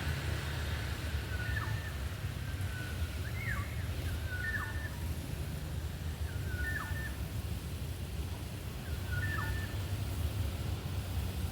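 A bird repeating a short call about five times, every two seconds or so: each a brief level note followed by a quick downward slur. A steady low rumble runs underneath.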